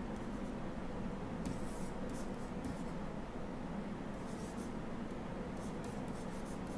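Stylus scratching on a tablet screen in several short strokes while handwriting an equation, over a faint steady background hum.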